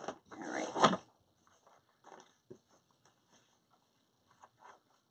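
Ribbon rustling as it is handled and folded: a half-second rustle ending in a sharp knock about a second in, then faint scattered rustles and ticks.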